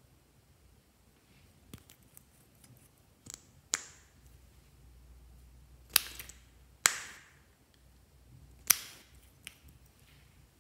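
Handling of a liquid lipstick tube: a series of about six sharp clicks and taps of its cap and applicator, some with a brief ring.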